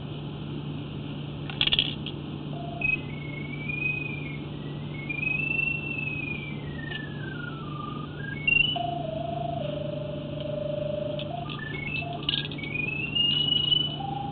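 A sewer camera locator receiver tracking the sonde in the camera head: one electronic tone that glides and steps up and down in pitch as the signal changes, over a steady low hum, with a few sharp clicks.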